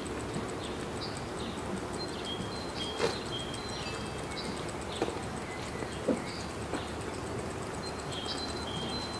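Outdoor ambience: steady background hiss with distant songbirds giving short whistled notes, and a few sharp knocks about 3, 5 and 6 seconds in.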